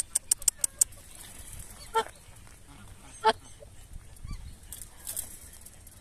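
Whooper swan giving two short, nasal honks, about two seconds in and again a second later, the second louder. A quick run of about six sharp clicks comes in the first second.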